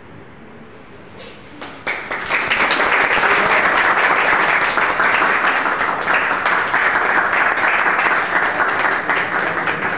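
A small group of people clapping. It starts abruptly about two seconds in and goes on steadily.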